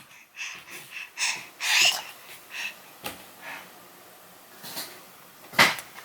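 A baby making a string of short, breathy huffs and excited puffs of breath, with one sharper, louder burst near the end.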